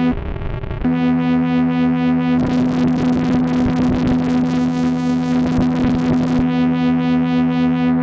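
Moog Grandmother analog synthesizer holding a sustained, buzzy note. A moment after the start the tone briefly gives way to a rough noise, and from about two and a half seconds in it turns gritty and noisy for about four seconds before settling back to the clean sustained note, as the patch cables are changed.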